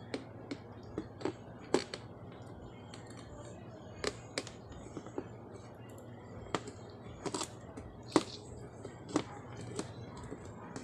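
Irregular sharp clicks and taps from a soldering iron and a TV main board being handled while a bloated capacitor is desoldered, over a faint steady low hum.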